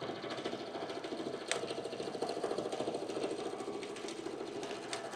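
Milling machine running, a fast, even mechanical rattle.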